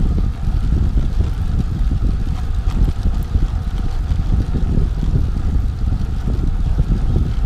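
Wind buffeting the microphone of a camera on the handlebars of a Trek 5500 carbon road bike riding at about 14–15 mph. It is a steady, fluttering low rumble of noise.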